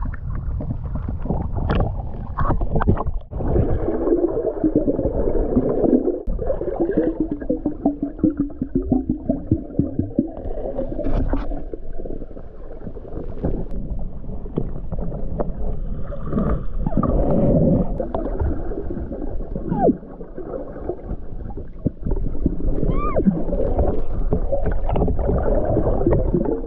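Water heard through a camera held underwater while snorkeling, muffled, swelling and falling unevenly, with a few short knocks.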